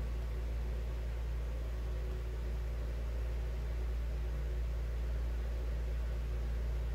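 Steady low hum with an even faint hiss: constant room background noise, with no distinct event.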